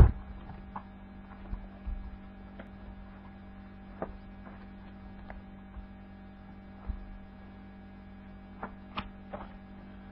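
Steady electrical mains hum on the recording, with scattered soft clicks and knocks and a sharper knock right at the start.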